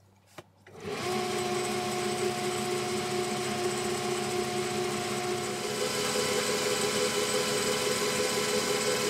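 Metal lathe with a DC drive motor starting about a second in and then running steadily with a humming whine, while its ball turning attachment cuts a brass ball. The pitch of the whine shifts slightly past halfway.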